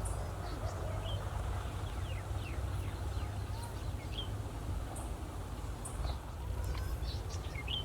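Small birds chirping in short, falling chirps now and then, over a steady low rumble and hiss.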